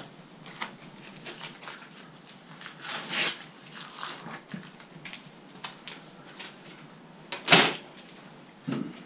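Handling noise: scattered light clicks and knocks, with one louder sharp knock about seven and a half seconds in and another shortly before the end.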